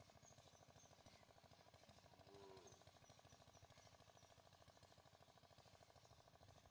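Near silence: a faint steady low hum with a fast even pulse, one short wavering call about two and a half seconds in, and a few faint high chirps.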